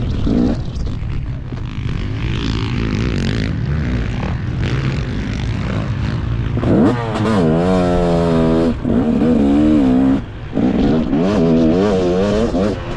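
KTM 250 two-stroke motocross engine at race pace, heard over wind and dirt noise on a helmet camera. About two-thirds of the way through it revs hard, its pitch rising and falling with the throttle. It breaks off briefly for a gear change or throttle chop, then revs again.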